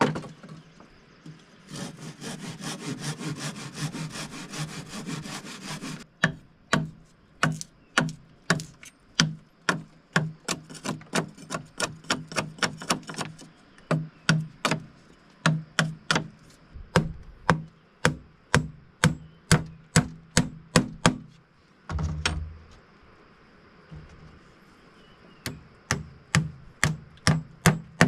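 Hand tools working wood: a few seconds of sawing, then a long run of sharp strikes on wood, two or three a second, pausing briefly before carrying on.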